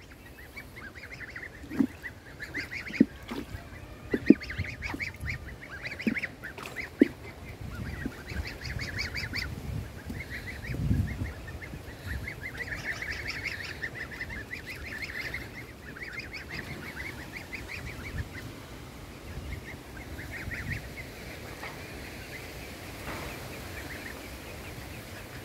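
A group of goslings peeping, many short high-pitched calls in overlapping bursts, with a few sharp knocks in the first seven seconds.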